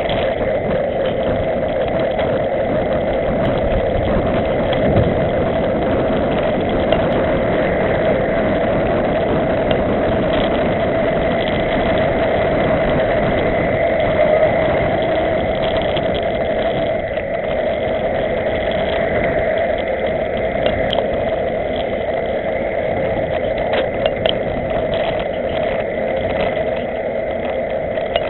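Steady rushing wind and tyre noise on a camera moving with a group of road cyclists, with a few faint clicks.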